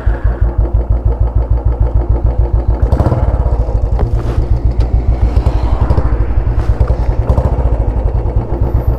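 Royal Enfield Bullet Classic's single-cylinder engine, just started, running at idle through a loud modified exhaust with a fast, even thump of exhaust pulses. It gets slightly louder about three seconds in.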